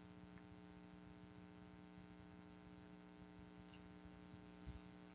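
Near silence: a faint steady electrical hum, with one small soft knock about two thirds of the way through.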